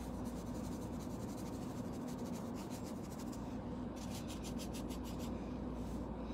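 Paintbrush rubbing over a canvas tool bag: quick, repeated scratchy strokes as acrylic paint is worked in to shade the design.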